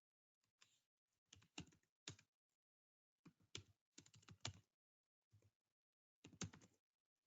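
Faint computer-keyboard typing in a few short bursts of keystrokes with pauses between them.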